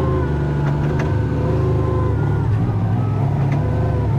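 Kubota R430 compact wheel loader's diesel engine running under the operator, with a whine that rises and falls in pitch as it drives, heard from the cab.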